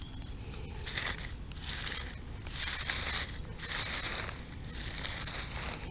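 Footsteps crunching through dry cut stalks and leaf litter, about one step a second, five steps in all.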